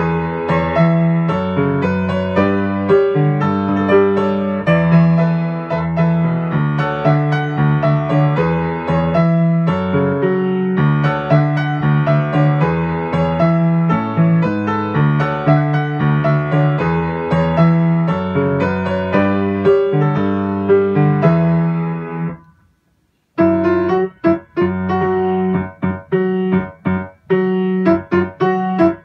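Grand piano played solo in a busy J-pop arrangement with full chords and a steady bass. About three-quarters of the way through, the playing stops dead for under a second, then picks up again with short, detached chords.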